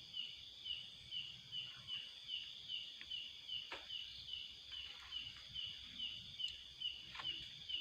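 An insect, likely a cricket or katydid, chirping steadily at about two high chirps a second, with a couple of faint clicks.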